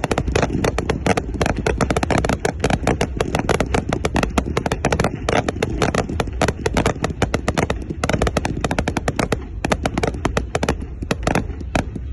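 Fireworks crackling: a dense, irregular string of sharp cracks, several a second, over a steady low rumble.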